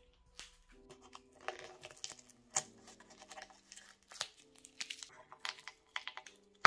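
Masking tape being peeled and crumpled off the head tube of a freshly painted bicycle frame: irregular crinkling and tearing crackles.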